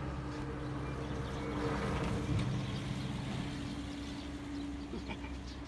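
A motor vehicle's engine humming steadily, growing louder about two seconds in and then fading again.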